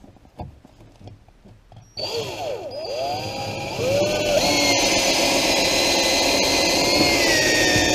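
Power drill driving a SPAX construction screw at an angle through a wall's bottom plate into the subfloor. After a few faint clicks the motor starts about two seconds in, whines up to speed, then runs steadily under load.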